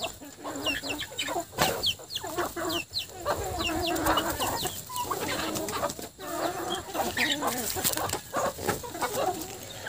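A flock of chickens clucking as they feed, with many short, high peeping calls that fall in pitch, repeated throughout.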